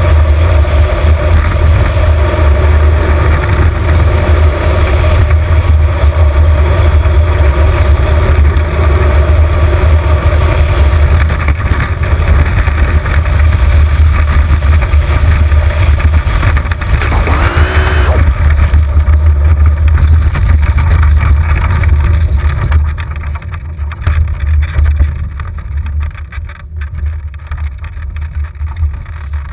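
Wind buffeting the onboard camera's microphone and the engineless soapbox cart's wheels rumbling on tarmac as it coasts downhill at speed. A short wavering whine comes about 17 seconds in. From about 23 seconds in, the noise drops as the cart slows.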